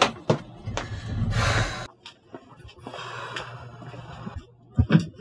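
Footsteps on wooden stairs, a few knocks, with a person's heavy breathing: one loud breath about a second in and a softer, longer one past the middle. Another knock near the end.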